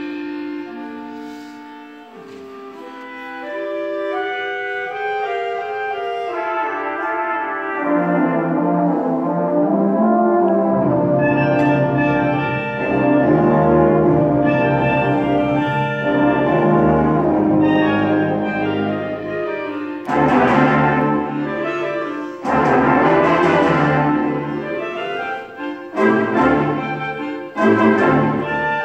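A high school band playing live, brass to the fore. The music starts soft, swells over the first several seconds, and near the end comes a series of sharp, loud accented chords.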